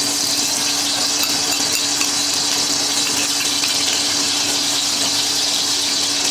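Desi ghee sizzling steadily in an aluminium pot on a gas stove, an even high hiss with a steady low hum underneath.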